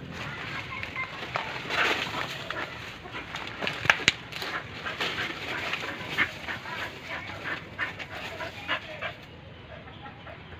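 A leashed dog rummaging in dry banana leaves and straw, the leaves rustling and crackling, with two sharp snaps about four seconds in.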